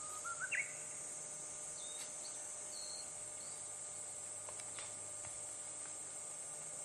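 Steady high drone of insects in the woods, with a bird's short call climbing in pitch just after the start and a few brief high chirps a couple of seconds in.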